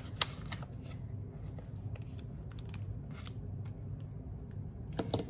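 Hands handling a cash-envelope binder: rustling of its plastic zipper pouches and pages, with scattered light clicks and taps and a cluster of them near the end, over a low steady hum.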